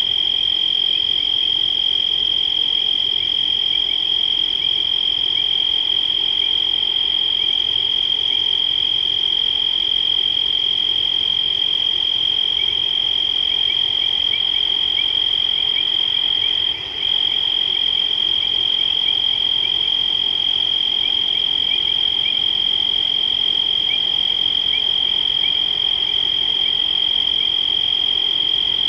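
Night chorus of insects and frogs at a waterhole: a loud, steady high-pitched trill, with faint short chirps scattered through it. The trill drops out for a moment about seventeen seconds in.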